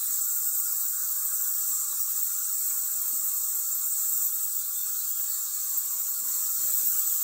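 Steady high-pitched hiss with a fainter, lower buzzing band beneath it, unchanging throughout.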